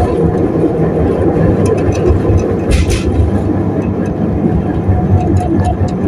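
Rail vehicle running, with a steady low rumble and scattered light clicks, and a short burst of higher-pitched noise about three seconds in.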